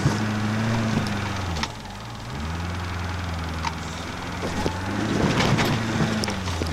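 Off-road competition truck's engine heard from inside the cab, revs rising and falling as it works over rocks, dropping away about two seconds in and picking up again near the end. Scattered knocks and clatter from the truck run through it.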